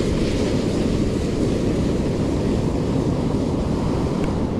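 Wind buffeting the microphone over the wash of ocean surf, a steady noise that holds without a break.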